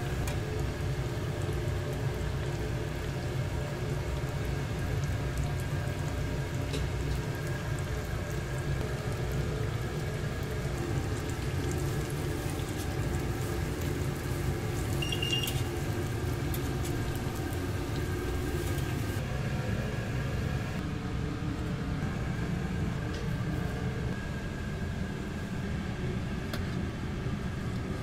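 Breaded pork cutlets deep-frying in a commercial stainless-steel fryer, the oil bubbling and sizzling over a steady low kitchen rumble. A brief faint beep about halfway through.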